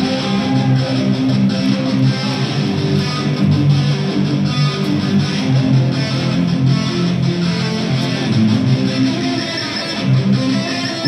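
Live punk rock band playing an instrumental passage, led by strummed electric guitars and bass, with no singing.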